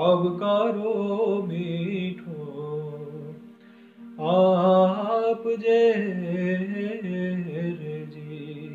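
A man singing a Gujarati devotional song solo in long, drawn-out phrases over a steady low drone. The voice drops away briefly a little past the middle, then comes back.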